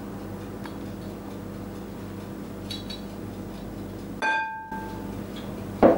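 Steady low room hum, then about four seconds in a single clink of a metal spoon against a glass mixing bowl, ringing briefly. A short, louder knock comes near the end.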